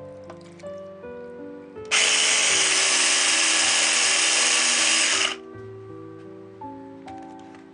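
A small electric kitchen appliance runs for about three and a half seconds, starting and stopping abruptly, over background music with light piano-like notes.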